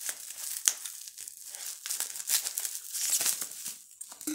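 Bubble-wrap packaging being torn open by hand: irregular plastic crinkling and rustling, with a sharp crackle about two-thirds of a second in, dying down near the end.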